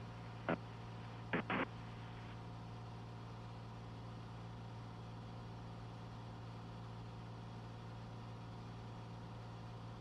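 Cessna 182's piston engine and propeller droning steadily in cruise, heard inside the cabin. Two brief clicks of radio traffic come in the first two seconds.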